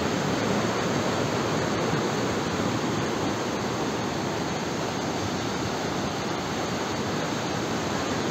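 Strong-flowing waterfall: a steady, even rush of water.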